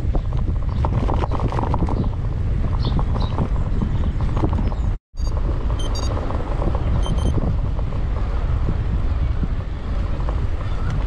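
Wind buffeting the bar-mounted GoPro's microphone while cycling, with steady road rumble and small rattling clicks from the bike. The sound drops out for a moment about halfway through, and a few short high chirps follow.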